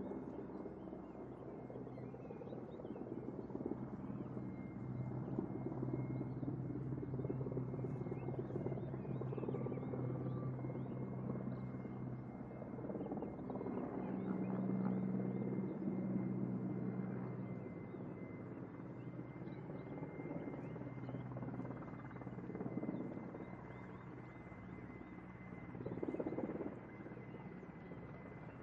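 Mil Mi-8 twin-turbine helicopter running: a steady low rotor and engine sound under a thin, high turbine whine. It swells in loudness about halfway through and briefly again near the end.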